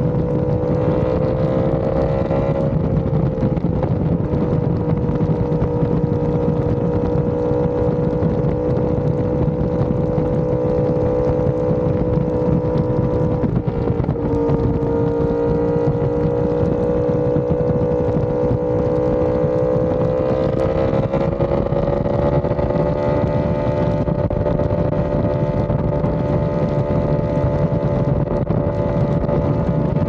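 Yamaha R1M's crossplane inline-four running through an SC Project exhaust at a steady cruise, over a constant low rush of wind and road noise. The engine note dips briefly about two and a half seconds in and again about fourteen seconds in, then climbs gradually about twenty seconds in.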